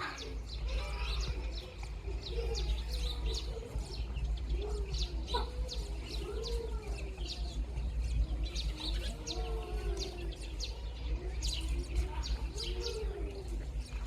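Baby chicks peeping continuously, many short, high, downward cheeps overlapping, with lower rising-and-falling bird calls underneath and a steady low rumble.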